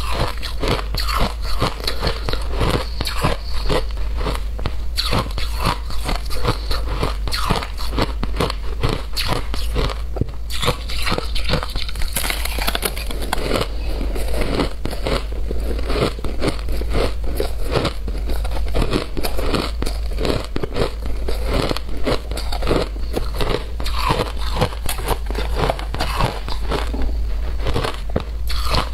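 Shaved ice being bitten and chewed, a dense run of crisp, rapid crunches.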